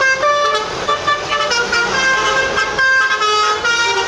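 Bus 'basuri' telolet musical horn playing a tune: a quick run of loud horn notes that step up and down in pitch every fraction of a second.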